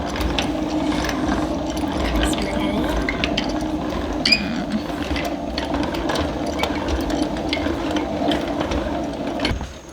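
Hand-cranked honey extractor spinning: a steady whir from the gears and basket with a rapid ratcheting clatter, which dies down just before the end as the cranking stops.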